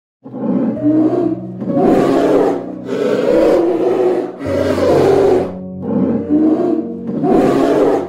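Polar bear growling in a run of rough growls, roughly one a second, over steady background music.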